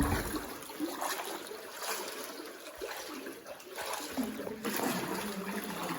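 Water splashing and trickling as people wade through shallow cave water, with faint voices in the background.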